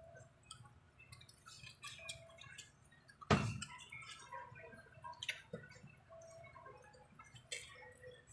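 Quiet eating sounds from people eating fried fish and rice by hand: scattered small clicks, smacks and squelches of chewing and of fingers and food on a plate, with one louder knock a little over three seconds in.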